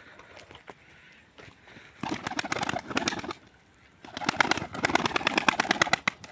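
Domestic pigeons' wings clattering in two bursts of rapid flapping as they take off from the ground: a shorter burst about two seconds in, then a longer one about four seconds in.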